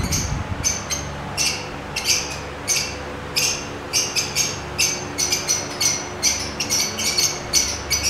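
Lovebirds giving short, sharp chirping calls, a couple a second at first and coming thicker and faster in the second half.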